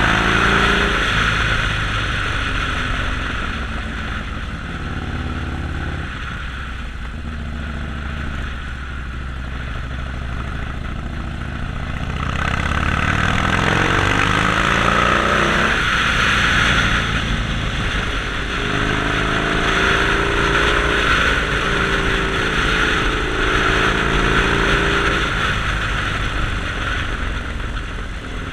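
Harley-Davidson Sportster XL1200X Forty-Eight's 1200 cc air-cooled V-twin running under way. Its pitch rises as it accelerates about halfway through, and again later before holding steady, with a hiss that swells as speed builds.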